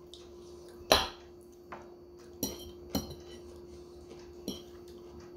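An eating utensil clicking and clinking against a bowl of pancit noodles: about six separate knocks, the loudest about a second in, over a faint steady hum.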